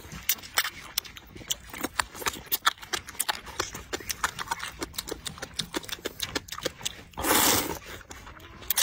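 A person eating rice noodles: rapid wet chewing and lip-smacking clicks, with one loud slurp of noodles about seven seconds in.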